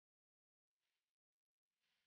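Near silence, with a very faint hiss of water being poured from a plastic measuring jug into a pot of sliced vegetables, starting a little past halfway and briefly breaking off.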